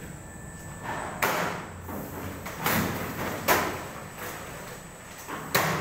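Automatic vertical form-fill-seal machine packing liquid milk pouches, cycling with a short, sharp stroke about every second. The strongest stroke comes near the end, over a low steady hum.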